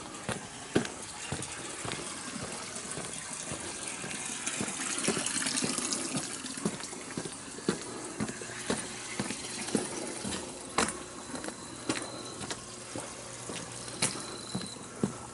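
Footsteps on asphalt at a steady walking pace, about two a second, over the rush of running water that swells to its loudest around five seconds in and then eases, as of water flowing in a roadside drain channel.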